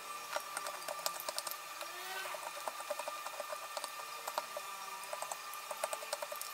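Hook knife cutting into the inside of a carved dổi đá wooden kuksa cup: a series of short, quick scraping cuts in clusters, texturing the wood surface.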